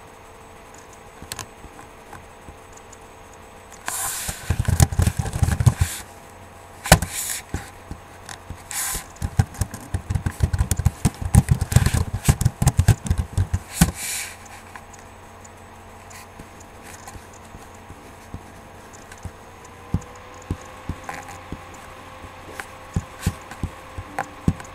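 Two stretches of scraping, rattling and knocking in the first half, then a few scattered clicks, over a steady hum of several tones.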